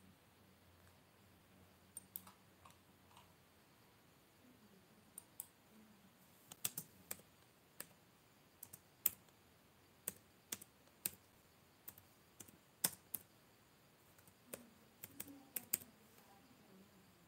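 Scattered sharp, light clicks of fingertips tapping on a phone touchscreen, typing: a few in the first seconds, then frequent irregular taps from about six seconds in until near the end.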